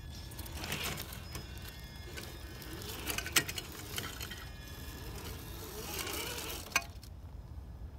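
Traxxas TRX-4 Land Rover Defender RC crawler's electric motor and gears whining as it crawls over rocks, with its tires and the towed trailer knocking and clattering on the stone. Two sharp clicks stand out, one about three seconds in and one near the end.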